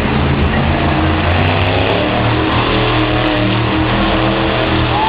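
Monster truck's big-block V8 running hard and revving up and down as the truck spins in deep mud.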